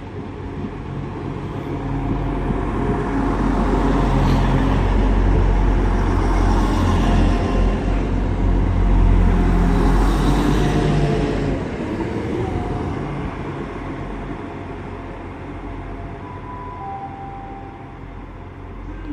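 Class 175 diesel multiple unit arriving at a station platform, its diesel engines and wheels growing louder as it draws in, then fading as it slows, with a few faint brake squeals near the end.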